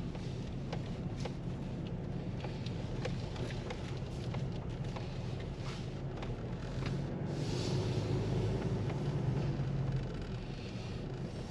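Car driving slowly, heard from inside the cabin: a steady low engine and road hum with scattered small clicks, and a louder hiss for a few seconds past the middle.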